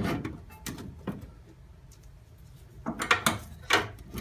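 Metal parts being handled and fitted on a car body under restoration: a few knocks and clanks in the first second, quiet in the middle, then a quick run of knocks near the end.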